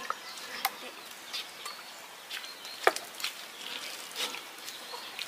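Rubber boots squelching and stepping through soft mud, with a few sharp clicks scattered through (the loudest about three seconds in) and faint chirps in the background.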